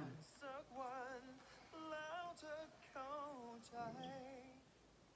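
A song in Thai: a solo voice singing with strong vibrato in short phrases, stopping about four and a half seconds in.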